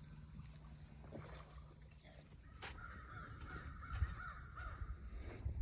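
A bird calling: one wavering call of about two seconds, starting about three seconds in, over a low rumble.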